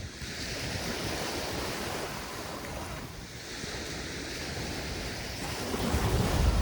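Mediterranean waves washing up and back on a sandy beach in two surges of hiss, with wind rumbling on the microphone, strongest near the end.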